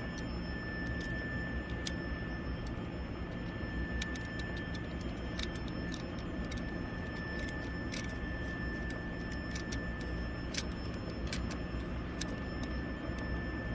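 Small, irregular clicks and scrapes of a cutter blade trimming the end of a coaxial cable, over a steady low background rumble and a faint constant high whine.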